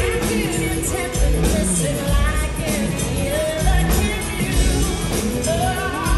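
Live pop-rock band playing with a woman's lead vocal singing over it, with a strong bass and drums.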